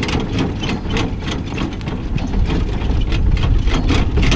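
Horse-drawn carriage moving at a trot: regular hoofbeats, about three a second, over a steady low noise of the wheels rolling and wind on the microphone.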